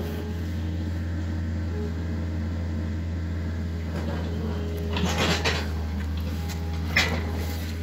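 Small excavator's diesel engine running with a steady low drone, overlaid by a few sharp clatters about five seconds in and again near the end.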